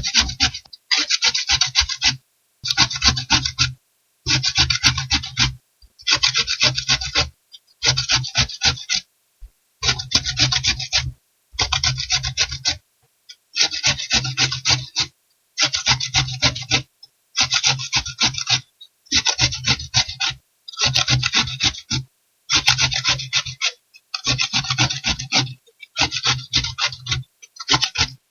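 A cucumber being filed, rasped against a rough metal surface in repeated passes: about fifteen scraping strokes, each roughly a second long with a short pause between them.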